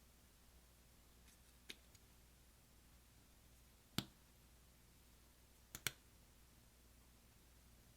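A few sharp clicks over near silence: a faint one near the start, a louder one about halfway through, and a quick pair of clicks shortly after.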